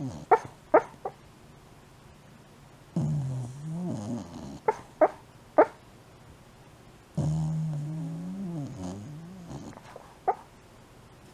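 A sleeping Shiba Inu sleep-talking, making two drawn-out low moaning groans that waver in pitch and short sharp yips: three in the first second, three between the groans and one near the end.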